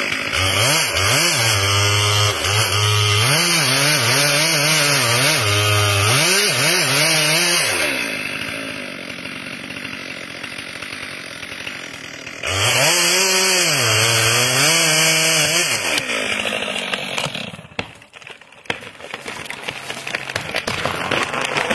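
Two-stroke chainsaw cutting into a large tree trunk at full throttle, its pitch dipping and recovering as the chain loads up in the cut; it eases off for a few seconds, cuts hard again, then winds down. Near the end comes a run of sharp cracks as the cut trunk starts to split.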